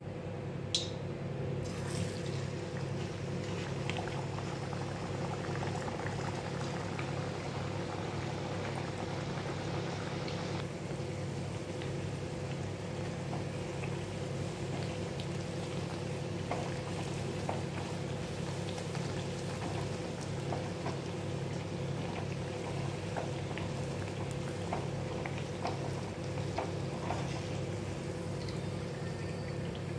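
Puris deep-frying in hot oil in a steel kadhai: a steady sizzle and crackle, with scattered light clicks of a wire-mesh skimmer against the pan, over a low steady hum.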